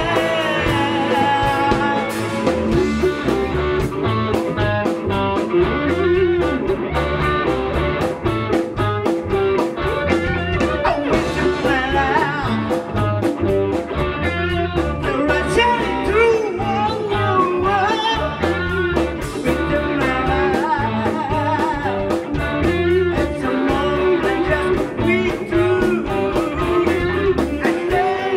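Live blues-rock band playing: two electric guitars, bass guitar and a drum kit keeping a steady beat, with a male lead singer.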